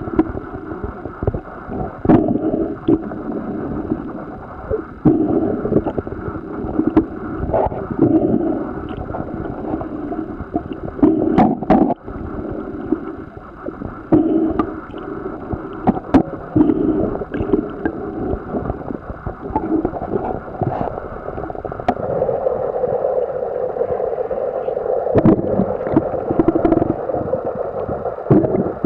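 Muffled underwater ambience: a low, uneven rumble and gurgling of water with scattered sharp clicks and knocks. It turns steadier about 22 seconds in.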